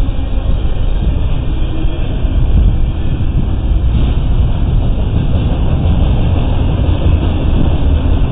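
Freight train rolling past with a steady low rumble.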